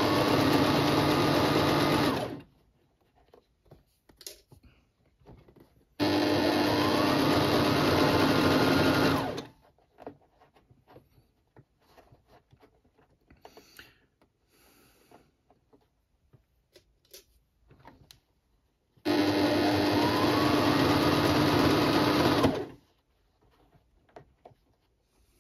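Electric sewing machine stitching in three runs of about three seconds each, its motor rising in pitch as it gets up to speed at the start of each run. Faint clicks and handling sounds fill the pauses between runs as the fabric is repositioned.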